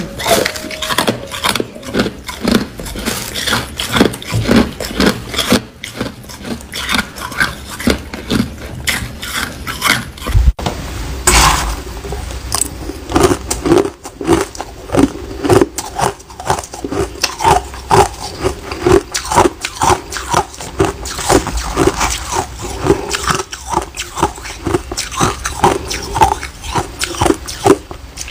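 Hard ice being bitten and chewed close to the microphone: dense, irregular crunching and cracking. About eleven seconds in, the crunching changes to that of crushed, frosty ice being chewed.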